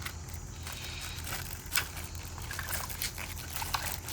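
Water trickling and pouring out of a water-filled plastic bag as it is opened, with a few light clicks.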